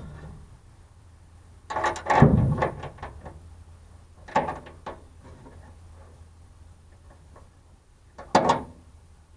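Clunks and rattles from a truck-bed toolbox and its lock being handled as a new lock is fitted. There are three short bursts: about two seconds in, about four and a half seconds in, and near the end.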